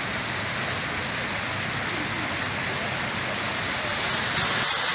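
Steady rush of splashing water from an outdoor fountain and water channel.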